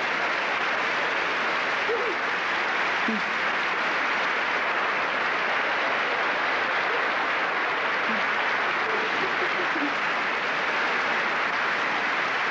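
Large theatre audience applauding steadily, with laughter mixed in, after a comedian's punchline.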